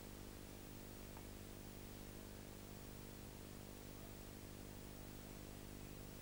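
Near silence: a faint steady hum and hiss of the recording, with no other sound.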